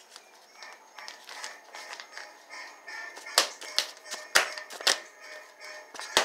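Kitchen clatter: about five sharp knocks of cookware and utensils being handled, in the last three seconds. Faint music plays underneath.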